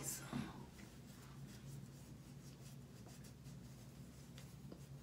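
Faint scratchy rubbing of a cotton ball dabbed against skin, over a steady low hum.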